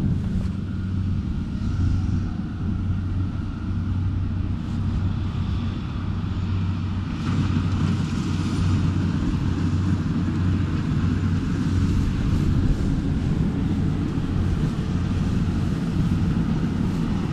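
Rice combine harvester engine running steadily across the paddy, a constant low hum, with wind rumbling on the microphone.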